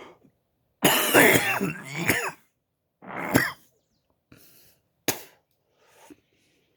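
A man coughing: a long, loud, rough coughing fit about a second in, followed by a few shorter, fainter coughs.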